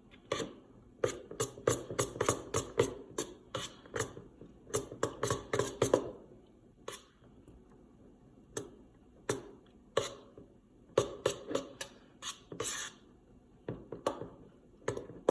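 A utensil stirring a thick mix of glue and shaving cream in a bowl, knocking and clicking irregularly against the bowl: quick and busy for the first six seconds or so, then sparser.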